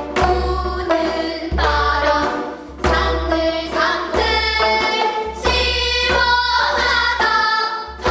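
A group of girls singing a Korean sinminyo (new folk song) together, accompanying themselves on plucked gayageum zithers, with sharp plucked notes under the held sung lines.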